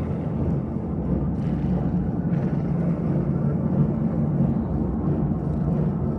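Low, steady rumbling drone: a dark horror ambience sound effect.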